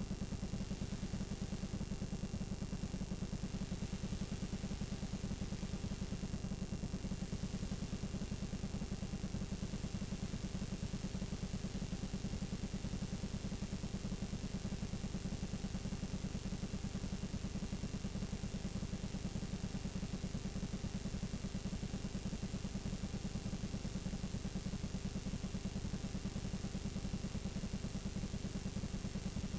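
Steady electrical buzz and hiss from a blank stretch of videotape playing back, with a low, fast-pulsing buzz, faint hum tones and a thin high whine.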